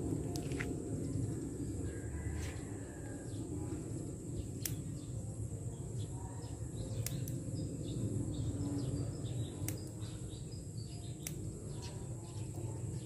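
Outdoor ambience: birds chirping now and then over a steady low rumble, with a faint high hiss and four sharp clicks spaced a few seconds apart.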